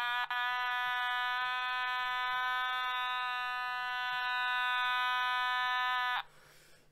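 Otamatone playing one steady electronic note, with a quick break and jump in pitch just after the start. The note is held for several seconds and cuts off suddenly near the end.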